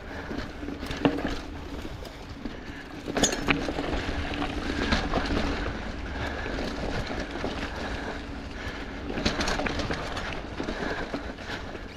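Mountain bike rattling over a bumpy dirt singletrack, tyres running over dirt and leaf litter, with sharper knocks about a second in, around three seconds in and again around nine seconds in as it hits bumps, over a continuous low rumble.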